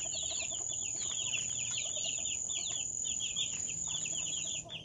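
A brood of week-old chicks peeping continuously: many short, quick, falling cheeps that overlap. A steady high-pitched cricket trill runs behind them and breaks off briefly near the end.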